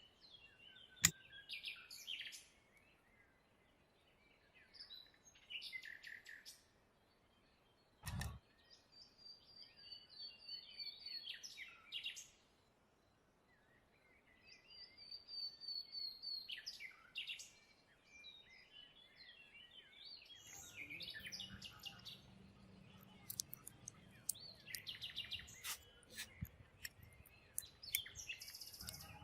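Birds chirping and singing in short repeated phrases, some with falling whistled notes. A single sharp knock comes about eight seconds in, and a few sharp clicks come near the end.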